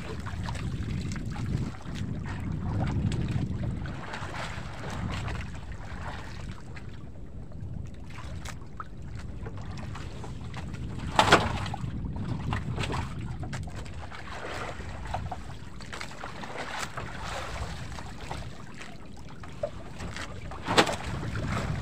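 Wind on the microphone and water washing against a wooden outrigger boat's hull, with scattered light knocks and two sharp louder knocks, one midway and one near the end.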